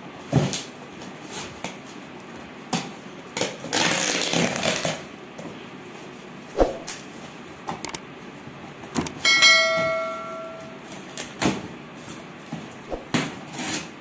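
Cardboard box being handled and its flaps pulled open, with scraping, rustling and scattered knocks. About nine seconds in, a bright bell-like chime rings and fades over about a second and a half.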